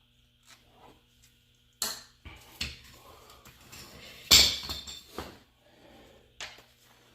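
Metal tools clanking and knocking against the car's front suspension while working at a seized strut bolt: a handful of sharp separate clanks, the loudest a little past the middle.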